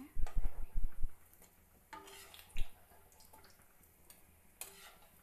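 Moringa-leaf pakora batter being dropped into hot oil in a kadhai: a quick run of dull thumps in the first second and one more about halfway, over faint frying and sizzling.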